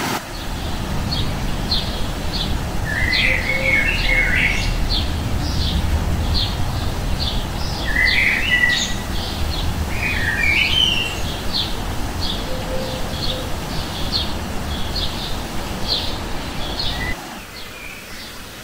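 Forest birds calling: a short high chirp repeated over and over, one to two a second, with a few warbling calls in between. Underneath is a steady low rushing noise that drops away near the end.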